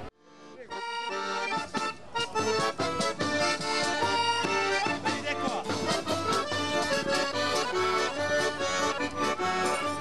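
Accordion music fading in during the first second and then playing steadily, with quick, rhythmic notes.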